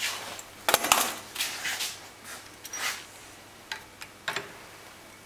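Metal clicks, taps and light scrapes from handling a digital dial indicator and its steel measuring sleeve against a Bosch common rail injector in a clamping device, while setting up to measure the magnetic gap. A cluster of sharp knocks comes about a second in, then scattered lighter taps.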